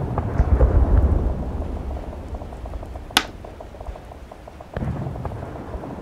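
A low rumble, loudest in the first second or so, over a steady rain-like patter and hiss. About three seconds in comes a single sharp click of a chess piece being set down on the board.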